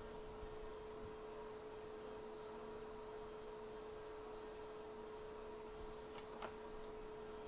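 Faint steady electrical hum at one held pitch, with a small click about six seconds in.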